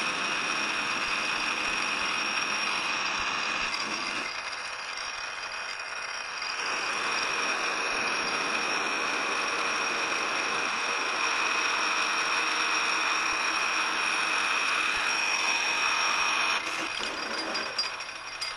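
Precision Matthews 1127 metal lathe running under power while the tool takes a turning pass along the bar: a steady cutting hiss with a constant high whine. The sound eases briefly about four seconds in, and it drops off a couple of seconds before the end as the cut finishes.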